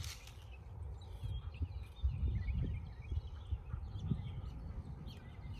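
Outdoor ambience: a low rumble of wind and handling on a phone's microphone, with a few soft thumps, and faint birds chirping in the background.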